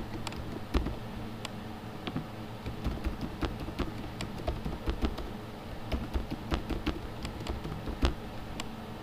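Typing on a computer keyboard: irregular runs of key clicks as passwords are entered, over a faint steady low hum.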